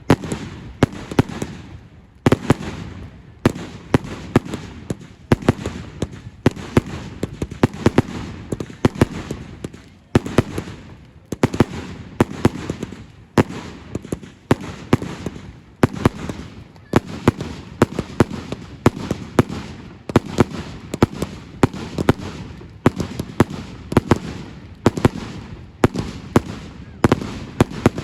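Fireworks going off: a rapid, continuous run of sharp bangs, several a second, coming in clusters over a constant low rumble.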